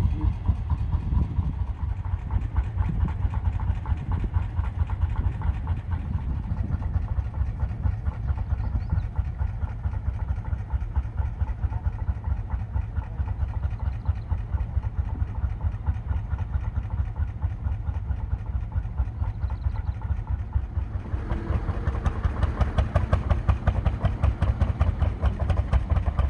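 Lanz Bulldog tractor's single-cylinder two-stroke hot-bulb engine running with a steady, rapid thumping. Near the end it grows louder.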